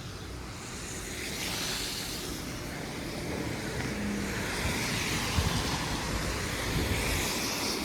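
Road traffic: passing cars' tyres hiss over the snowy street with a low rumble. The hiss swells about a second in and stays up.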